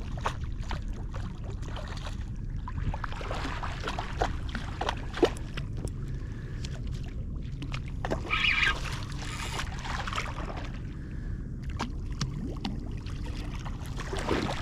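Shallow water splashing and sloshing as a hooked jack crevalle is brought in, with short sharp splashes throughout and a louder one a little past the middle, over a steady low rumble.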